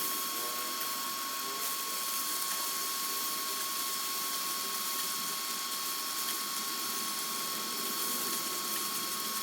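Fried rice stir-frying in a pan: a steady sizzling hiss, with a constant high whine underneath.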